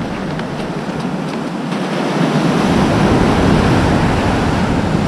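Shore-break surf washing up the beach, growing louder a couple of seconds in as a wave's foam runs up over the sand.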